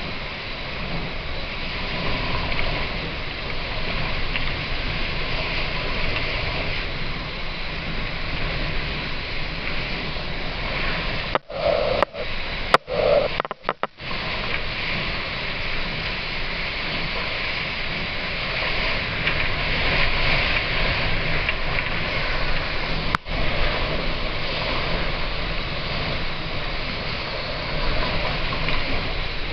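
Hurricane wind blowing hard and without pause, with wind buffeting the microphone. The sound cuts out briefly several times about 11 to 14 seconds in and once more near 23 seconds.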